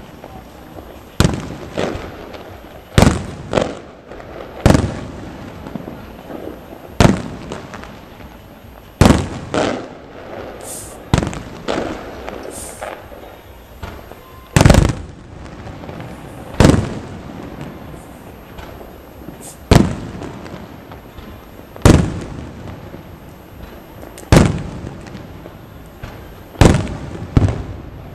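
Aerial firework shells bursting overhead: a string of sharp, loud bangs, roughly one every one to two seconds, each ringing out briefly, with crackling between them.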